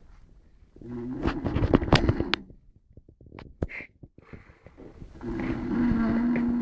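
Snoring: two long, rattling snores about four seconds apart, with quiet breathing and small clicks between them.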